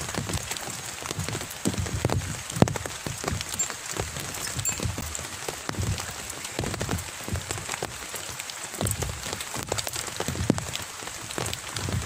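Rain falling steadily on a fishing umbrella and the pond surface, with irregular close drops tapping on the canopy.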